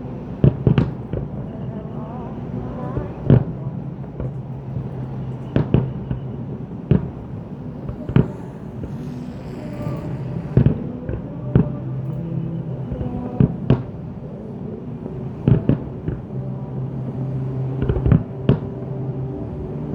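Aerial fireworks bursting in sharp booms every second or two, over music with long held notes.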